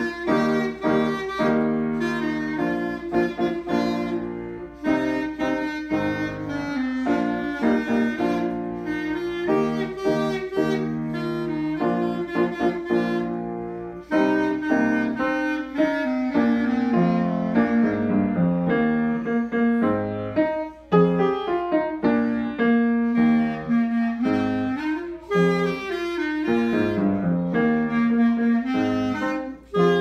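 A clarinet plays a melody in sustained notes over upright piano accompaniment. It goes in phrases, with a few brief gaps between them.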